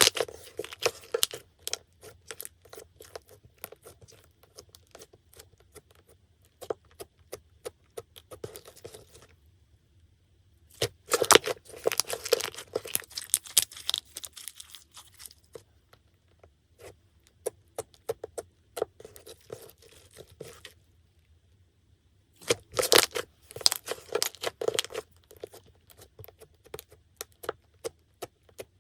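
Slime being kneaded and stretched by hand, making dense runs of sticky clicks and pops in bouts of a few seconds with short pauses between.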